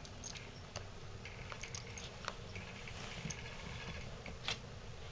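A dog and a pet groundhog play-wrestling: soft scuffling and rustling with scattered light clicks, one sharper click about four and a half seconds in.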